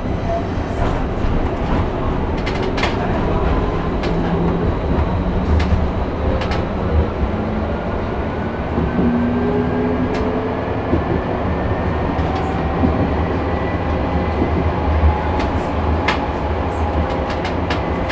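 Light-rail tram running along the line, heard on board: a steady rumble of wheels on rail with scattered clicks and knocks. A thin motor whine rises slowly in pitch through the middle.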